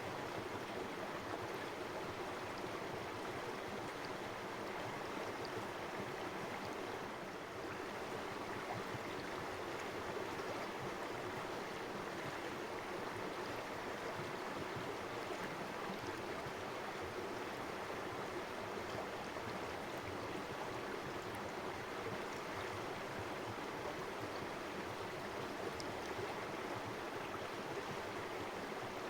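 Shallow river water running steadily over stones, an even babbling rush with no change in strength.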